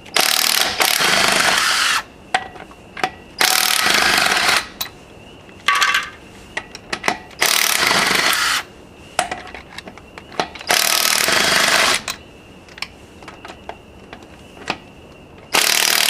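Impact wrench rattling the 19 mm lug nuts off a wheel, in about five bursts of one to two seconds each, with a short burst about six seconds in and small clinks between them.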